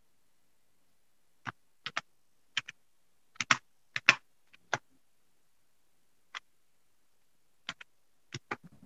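Scattered computer keyboard clicks, single taps and quick pairs at irregular intervals, picked up through a video-call microphone.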